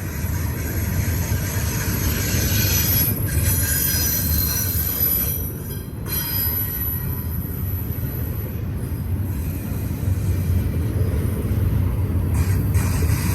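Intermodal freight train's cars rolling past on a tight curve: a steady heavy rumble of steel wheels on rail, with thin high-pitched wheel squeal from the curve above it.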